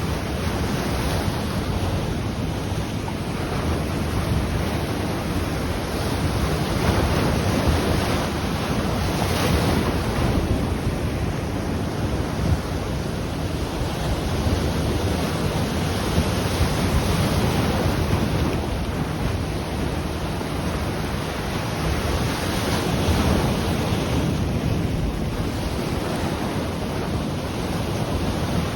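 Ocean surf washing on the shore in a steady wash that swells and eases every few seconds, with wind rumbling on the microphone.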